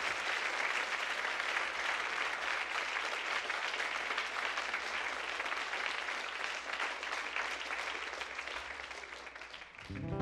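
Concert audience applauding, a dense patter of clapping that slowly dies away. Near the end an acoustic guitar strums the opening chord of the next song.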